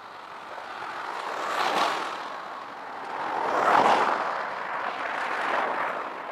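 Vehicles passing by, a steady rush that swells and fades, loudest about two seconds in and again near four seconds.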